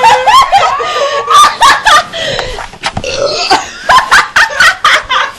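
Teenage girls laughing hard, with burps mixed in among the laughter.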